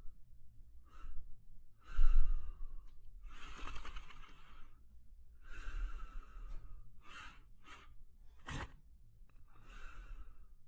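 German Shepherd breathing heavily and snoring in its sleep: a string of long noisy breaths a second or so apart, with a short sharp breath about eight and a half seconds in.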